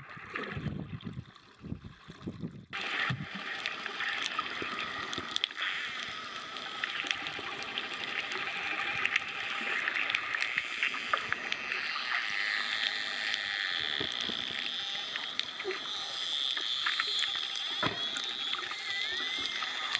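Bottlenose dolphins heard underwater: rapid clicking with whistles over a steady underwater hiss. The first couple of seconds hold low, rumbling water movement, which stops suddenly.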